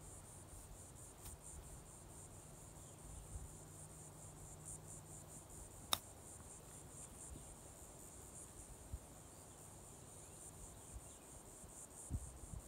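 A single sharp click about six seconds in as a pitching wedge strikes a golf ball on a short chip shot, over a faint steady chirring of insects.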